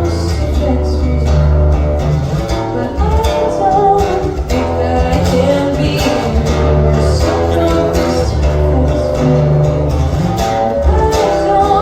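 A live song: a voice singing over strummed guitar, with a steady low bass underneath.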